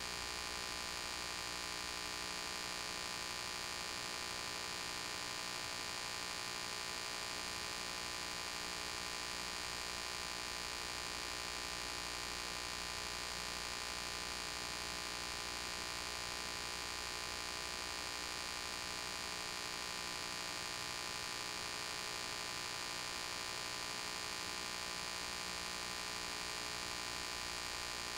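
Steady electrical hum made of many stacked tones, with a layer of hiss. It never changes and nothing else is heard.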